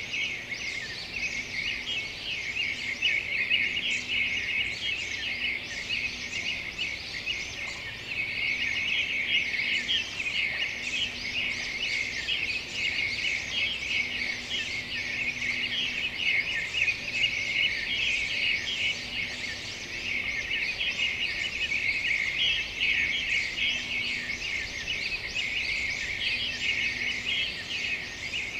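Continuous dense, high-pitched chirping of many small birds, with a faint low hum that comes and goes underneath.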